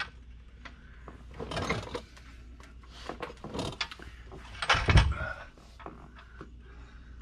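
Scrapes and knocks of a VW Beetle swing-axle transaxle being shifted into position on the car, with a heavy thud about five seconds in.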